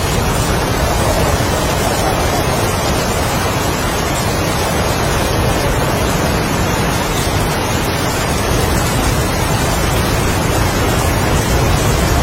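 Heavy rain with strong wind: a steady, dense rushing hiss.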